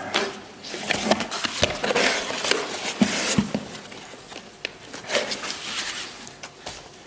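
Irregular rustling with scattered clicks and light knocks as parts are handled on a workbench.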